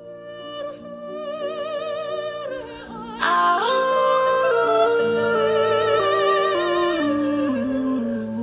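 Music with a solo voice held in strong vibrato over a slowly descending bass line, swelling from quiet and coming in much louder with an upward-sliding note about three seconds in.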